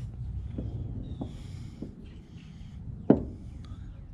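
A metal brake caliper bolt and its sleeve being handled on a wooden deck: a few light clicks, then one sharp knock about three seconds in as the bolt is set down upright on the wood.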